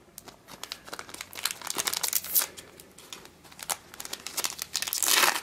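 Foil booster pack wrapper crinkling and tearing as it is opened and crumpled in the hands, with a dense run of crackles that is loudest near the end.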